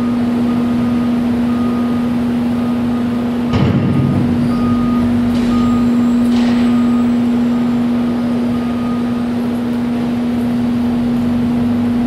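Steady low machine hum over a constant noisy wash, with faint short beeping tones above it; a brief scuffing burst about three and a half seconds in.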